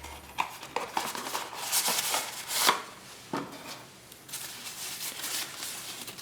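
Packaging for a metal camera lens hood being handled and opened by hand: a series of small knocks and taps mixed with rustling, the sharpest knocks a little before the middle.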